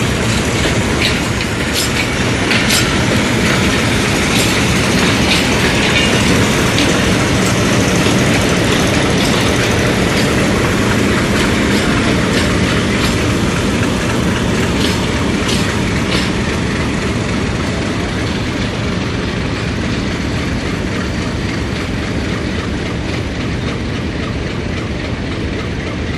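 Pakistan Railways passenger train departing behind a Hitachi PHA-20 diesel-electric locomotive, rolling past with steady running noise and scattered sharp clicks from the wheels and rail joints. The sound fades gradually over the last ten seconds or so as the train draws away.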